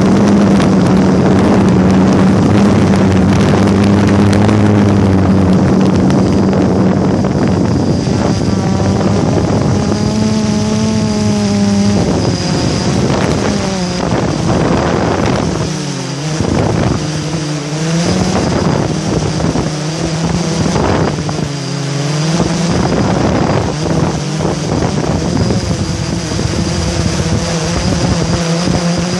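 Drone motors and propellers humming steadily, with wind rushing over the microphone. In the middle the pitch drops and rises again several times as the drone manoeuvres.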